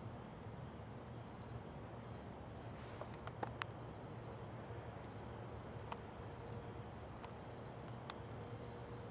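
Faint crickets chirping in a slow, regular rhythm over a low steady hum, with a few faint clicks.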